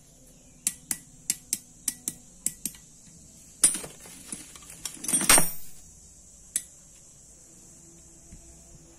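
Small metallic clicks and clinks from hand tools and the armature of an angle grinder while a new ball bearing is fitted onto the armature shaft: a quick run of about eight sharp clicks, then two longer, louder clatters, then one more click.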